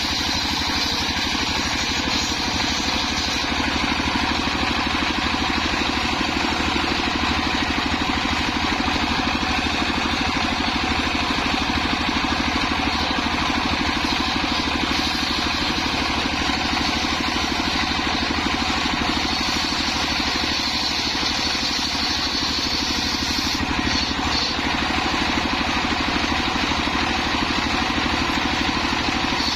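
Engine of a home-built circular saw machine running steadily at constant speed, with a fast, even firing beat.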